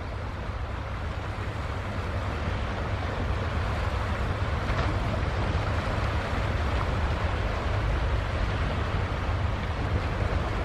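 Steady low rumble and wash of a large Ro-Ro car carrier passing close offshore, mixed with wind and waves. It grows louder over the first few seconds, then holds steady.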